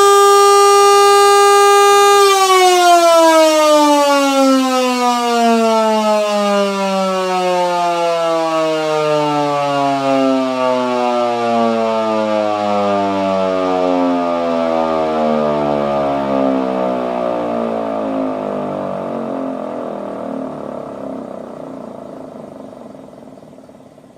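Federal Type 2 two-horsepower civil defense air raid siren, in its housing, holding a steady full-pitch tone for about two seconds, then winding down in a long falling wail that fades away near the end. This is the motor switched off and the rotor coasting to a stop.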